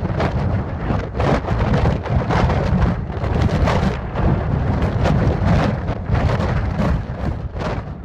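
Gale-force wind buffeting the microphone: a heavy, continuous low rumble with gusts of hiss surging every second or so. The wind is strong enough to blow the waterfall's water back up into the air.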